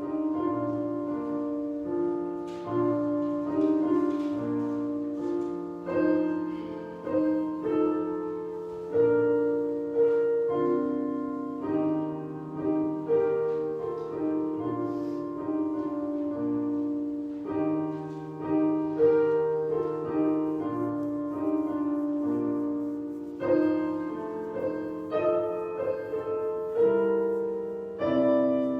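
Solo piano playing a slow, gentle piece, with chords and single notes changing about every second.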